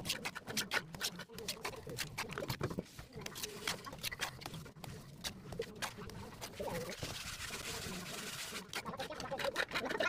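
Steel plastering trowel scraping and slapping wet cement mortar onto a brick pillar: a quick run of short scrapes and taps, then one longer, steady smoothing scrape about seven seconds in.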